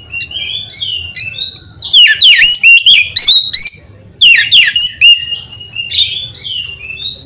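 Oriental magpie-robin singing: a run of varied whistled warbles, broken twice, about two and four seconds in, by loud stretches of quick, sharply falling notes, then softer warbling again.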